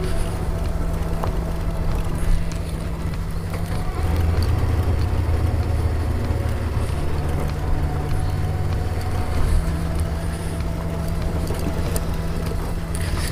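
Adventure motorcycle's engine running at a steady, slow riding pace on a loose gravel road, its pitch shifting to a new level a few times as the rider eases the throttle.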